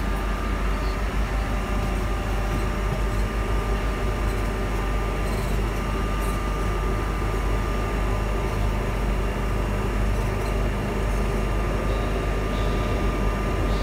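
Steady low rumble inside the carriage of a Jubilee Line 1996 stock tube train, with a thin steady whine held throughout.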